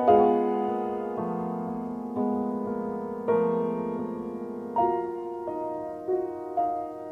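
Background piano music: chords and notes struck about once a second, each fading away.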